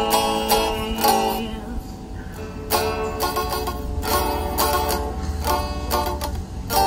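Electric guitar strumming chords on its own, each strum sharp and ringing. There is a softer lull about two seconds in, then the strumming picks up again at about two strums a second.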